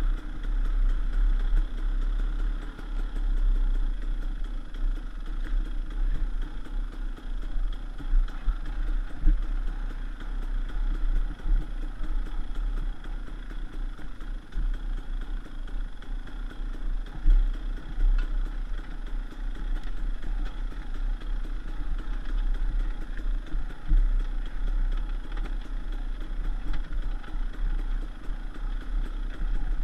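KTM 300 EXC's two-stroke single-cylinder engine running at fairly steady, low revs while the bike rides a dirt trail, with a deep rumble underneath and a few louder knocks from the bumps.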